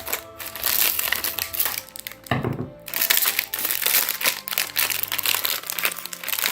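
Plastic wrapper of a biscuit packet crinkling as it is cut open and handled, with a short low thump a little over two seconds in.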